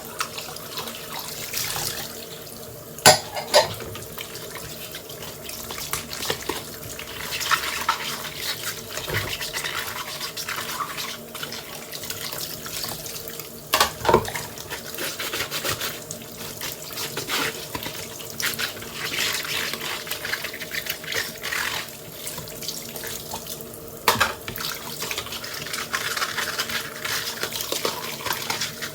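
Water running from a kitchen tap and splashing in the sink as dishes are washed by hand, with sharp clatters of dishes knocking together: twice about three seconds in, twice around the middle, and once more near the end.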